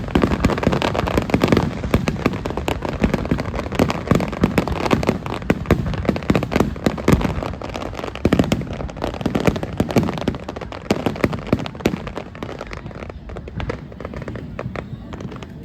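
Rapid, continuous barrage of fireworks bangs and crackles, densest early on and thinning out and quieter toward the end.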